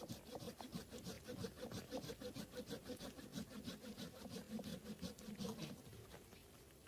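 Hand saw cutting wood: a fast, even back-and-forth of about four rasping strokes a second that stops near the end.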